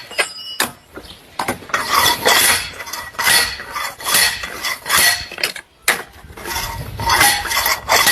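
Repeated metallic clanks and clinks, irregular strikes a fraction of a second to about a second apart, each with a short ringing tail.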